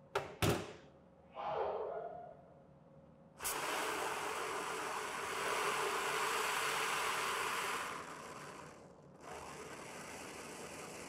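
Oxy-acetylene brazing torch: two sharp pops near the start and a brief rush from the acetylene flame. From about three seconds in, a steady hiss as the oxygen is opened and the flame turns blue. The hiss drops and briefly cuts out about eight to nine seconds in, then settles quieter, the little sizzle that shows the flame is not burning too hot.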